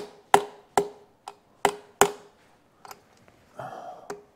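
Wheel-weight pliers tapping clip-on balance weights along a steel wheel rim to slide them into a new position while static balancing: about eight sharp metallic taps at an uneven pace, each with a short ring from the rim, most of them in the first two seconds and the last one near the end.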